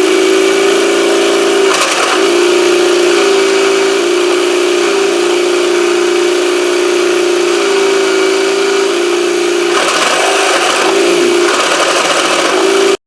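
Electronic engine sound effect from a Playmates Fun-To-Drive toy dashboard, played through its small speaker: a loud, buzzy, steady synthetic engine drone that wavers briefly a couple of times and cuts off suddenly near the end.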